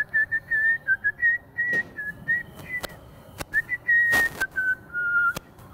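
A person whistling a wandering tune in short notes, each a single clear tone, with a few sharp clicks and a brief burst of noise about four seconds in.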